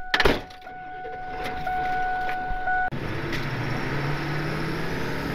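A single loud thump near the start, over a steady electronic tone. About three seconds in, this gives way to the steady hum of the tow truck's engine and road noise heard inside the cab as it drives.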